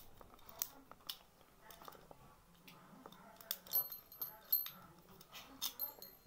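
Small metal keys and a steel ring on a string clinking and jingling as they are handled, a run of sharp irregular clicks.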